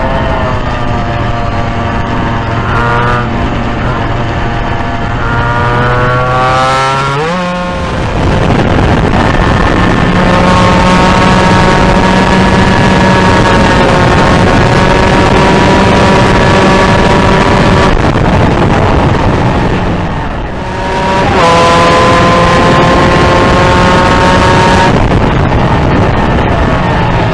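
Onboard sound of a Suzuki RGV250 two-stroke twin at racing speed under heavy wind rush. The engine note climbs through the revs, falls sharply about seven seconds in, holds a steady pitch for several seconds, dips again around twenty seconds in and climbs back.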